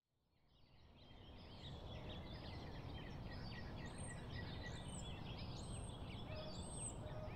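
Birdsong ambience: many small birds chirping over a steady low rumble, fading in over the first second or two. From about four seconds in, a high call repeats roughly once a second.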